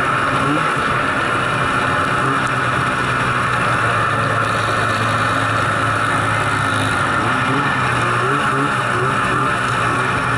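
Snowmobile engine running steadily under way, heard from on board.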